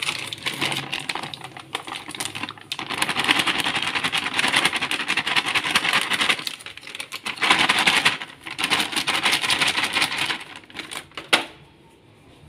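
Metal flour sieve being shaken and tapped over a bowl to sift flour: a fast, continuous rattle with a couple of brief breaks, ending with a sharp knock near the end.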